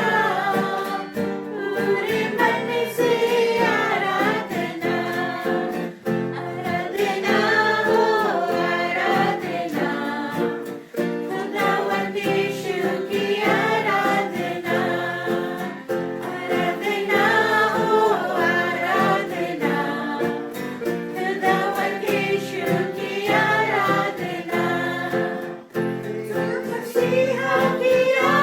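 A Hindi Christian worship song, sung by voices over instrumental accompaniment.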